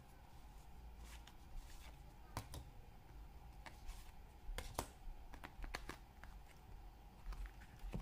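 Plastic bank cards sliding into and out of the card slots of a leather wallet, with light rustles and a few sharp clicks, the loudest about two and a half and five seconds in, over a faint low hum.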